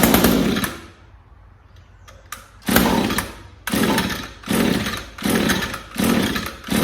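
Echo SRM string trimmer's two-stroke engine being pull-started over and over on its recoil starter: a pull at the start, then a quick run of five more pulls, each cranking briefly without the engine catching. The trimmer won't start on the off-brand Savior spark plug.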